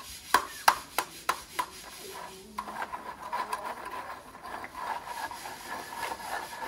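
About five sharp knocks, roughly three a second, in the first couple of seconds. Then a steady scraping rub as a long wooden screed board is drawn across wet concrete to level it.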